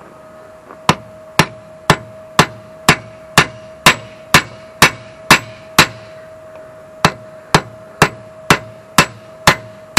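Three-pound cross-peen sledge striking steel rivets on a sickle mower's knife section backed by a solid steel block, peening them over to fasten the section to the sickle bar. Sharp metallic strikes come about two a second, with a pause of about a second just past halfway before the strikes resume.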